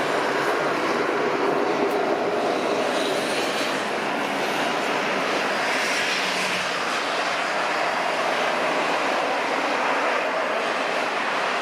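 Jet engine noise of a landing Boeing 737-800 airliner, its CFM56 turbofans giving a steady rushing sound with a brief rise in hiss about six seconds in.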